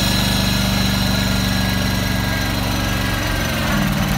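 Small engine of a tracked motorized power carrier running steadily, its note changing about three and a half seconds in.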